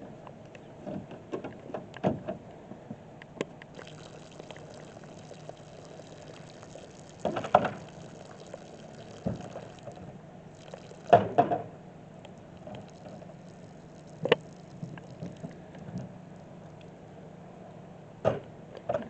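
Water running and gurgling through a dairy milking pipeline during its automatic wash cycle, over a steady low hum. Several sharp clanks break in, the loudest about seven, eleven and eighteen seconds in.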